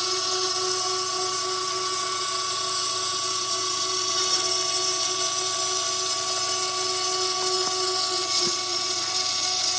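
CNC router spindle running at high speed as its engraving bit cuts a groove into a white sheet: a steady whine with several held tones over a strong hiss.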